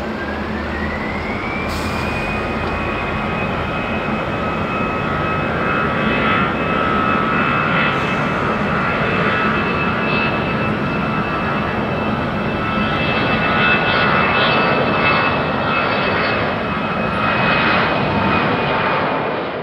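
Twin turbofan engines of an Airbus A320-family airliner spooling up to takeoff thrust at the start of the takeoff roll. A whine rises over the first two seconds and then holds steady over a loud, even engine roar.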